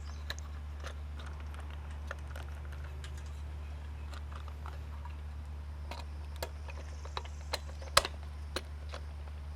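Scattered small clicks and taps as wires are tucked into an electrical box and a light fixture is handled against its mounting plate, one sharper click a bit after the middle, over a steady low hum.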